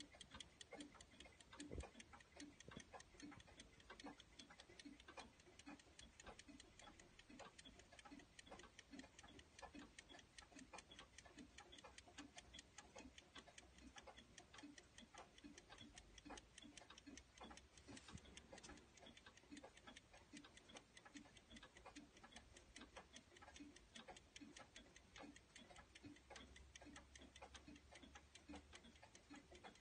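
Antique French miniature grandfather clock ticking: faint, steady, evenly spaced ticks from its running movement.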